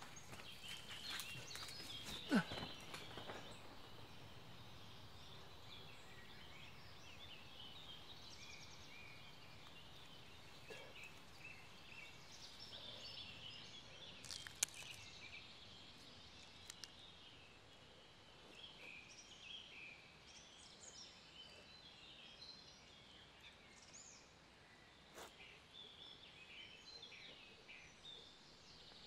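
Quiet woodland ambience: small birds chirping here and there, with one short, louder call falling in pitch about two seconds in, and a few faint sharp clicks.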